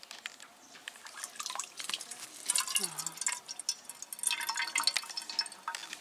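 Water splashing and dripping as it is poured from a toy boat into a metal pot, in quick irregular splashes. They come in two spells, about two and a half seconds in and again about four seconds in.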